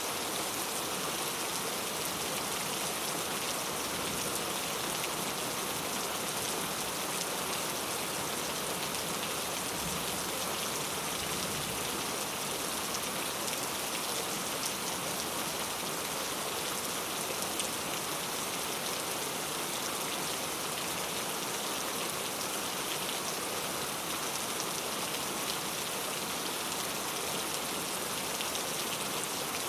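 Heavy rain falling steadily, an even hiss of many drops with fine pattering ticks and no breaks or changes.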